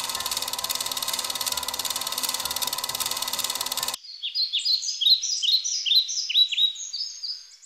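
Film-projector clatter: a fast, even mechanical rattle that stops abruptly about four seconds in. Small birds then chirp in many quick, falling notes.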